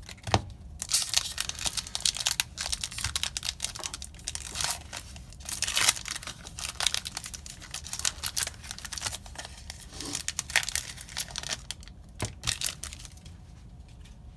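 A foil Magic: The Gathering booster pack wrapper being torn open and crinkled, with a few sharp rips among the crackling, then cards being handled.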